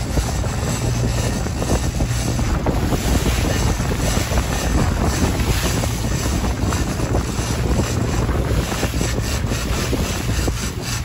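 Outboard motor running steadily as the boat moves under way. Wind buffets the microphone and the wake rushes behind the hull.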